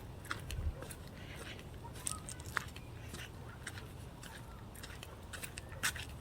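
Footsteps crunching along a dry dirt trail: irregular short crunches and clicks of shoes on the ground and debris, over a low rumble.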